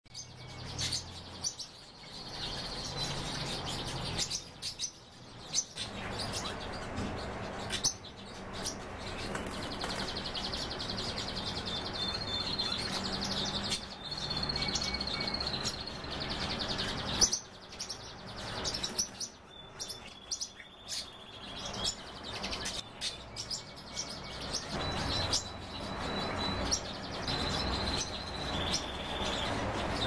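Pet birds calling: repeated short trilled calls, high-pitched, with many sharp clicks and taps in between.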